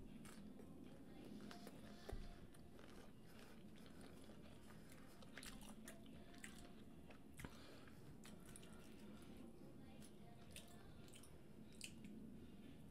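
Faint close-miked chewing and biting of boiled shrimp, with scattered small wet mouth clicks; one slightly louder click about two seconds in.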